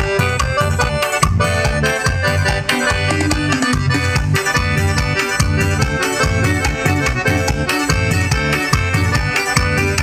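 Forró music led by an accordion over a steady, driving low beat with regular high percussive strikes.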